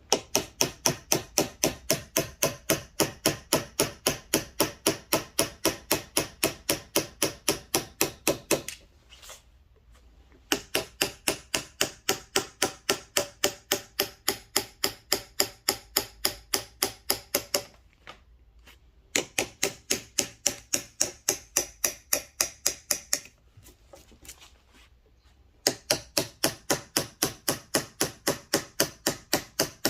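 Mallet tapping a carving chisel into ginkgo wood for relief carving, in quick even strokes about four to five a second. The tapping comes in four runs with short pauses between them.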